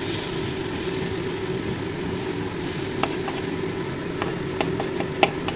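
Onion-tomato masala frying in an aluminium kadai and being stirred with a spatula, over a steady low rumble. From about three seconds in come several sharp clicks of the spatula striking the pan.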